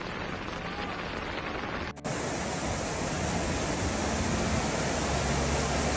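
Steady rushing noise of floodwater and heavy rain in a flooded street. About two seconds in, it cuts abruptly to a louder, hissier rush of floodwater surging down the street.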